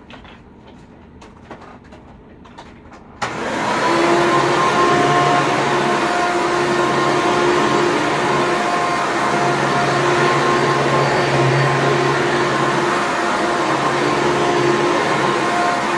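1994 Hoover Elite Supreme upright vacuum cleaner switched on about three seconds in, after a few faint clicks, then running steadily: a rush of air with a steady motor whine over it.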